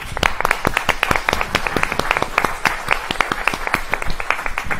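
Audience applauding: many people clapping at the close of a talk, starting at once and holding steady, thinning out near the end.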